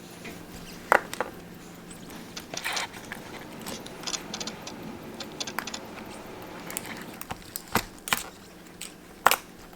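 Small metal clicks and taps from handling a vintage Seiko automatic watch's movement, case and stem with hand tools while taking the movement out of the case, scattered irregularly over a faint steady hum.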